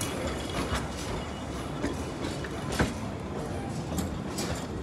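Narrow-gauge railway carriages rolling slowly past, with a steady rumble and scattered sharp clicks from the wheels on the track. The loudest click comes near the end.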